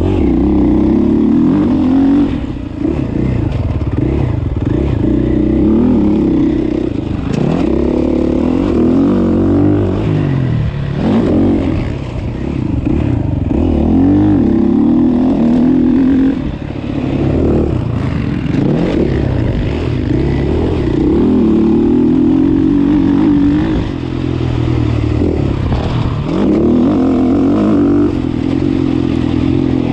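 Motocross bike engine, heard close up from the rider's chest-mounted camera, revving up and down with the throttle. It eases off briefly about four times.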